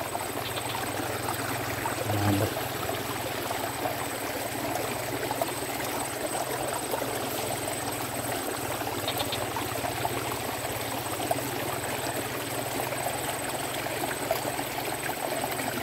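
Steady trickle and rush of running water in a small ditch, with a thin, steady high whine above it.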